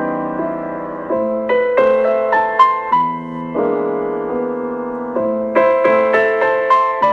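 Background music: gentle solo piano playing sustained chords and a slow melody.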